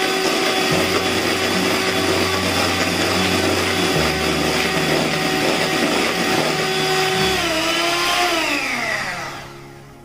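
Electric hand mixer running steadily, its beaters whisking eggs and sugar into a foamy batter in a plastic bowl. Near the end it is switched off and its whine falls in pitch as the motor spins down.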